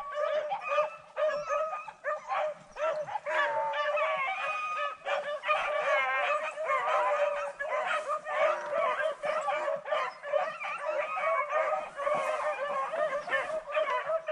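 A pack of rabbit-hunting dogs baying in a continuous chorus, several voices overlapping, as they give tongue on a rabbit's trail.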